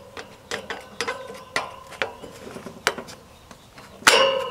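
Plastic emblem cap being twisted on the wire fan grille of a Trane condenser unit: an irregular run of sharp clicks, each leaving a short metallic ring from the grille, with one louder click and ring near the end.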